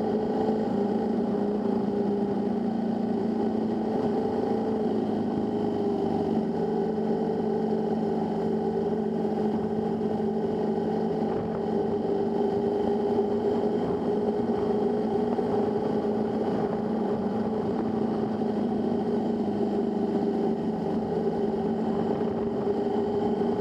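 Motorcycle engine running steadily while riding along at road speed. The engine note drops a little about five or six seconds in, then holds steady again.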